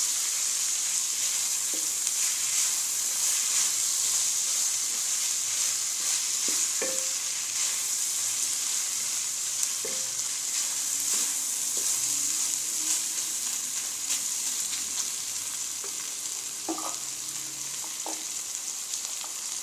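Minced beef and kachnar (bauhinia) buds sizzling in hot oil while being stirred and turned with a wooden spoon in an aluminium pan: a steady frying hiss with a few short knocks of the spoon against the pan. The sizzle grows a little quieter near the end.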